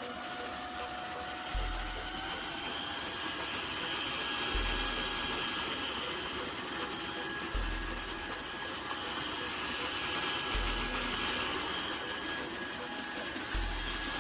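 Tineco Floor One S3 cordless wet-dry floor washer running with a steady motor hiss and a thin whine, with a short low thump about every three seconds.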